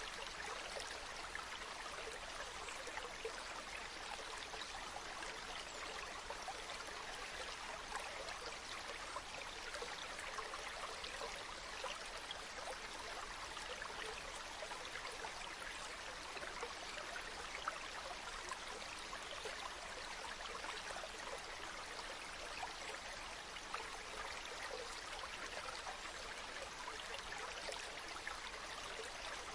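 Water flowing in a stream, a steady, even babble with fine splashing and trickling detail throughout.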